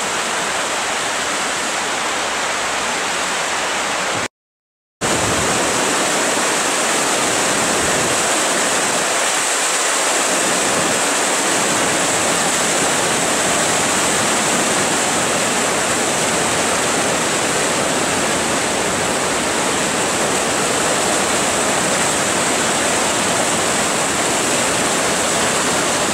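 Steady rush of whitewater rapids in a slalom course channel, with a brief gap of silence about four seconds in.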